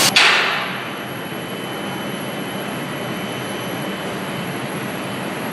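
Steady hum of workshop machinery and ventilation, with a loud hiss that cuts off sharply at the start and dies away within the first second.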